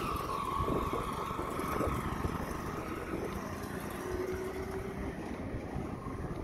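A small auto-rickshaw engine passes and drives off down the road, its whine sinking slightly over the first three seconds, over a steady rumble of wind on the microphone.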